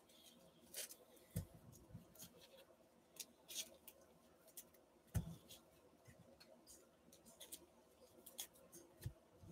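Faint, scattered clicks and soft taps of baseball cards being handled and set down on a table, with a slightly louder tap about five seconds in.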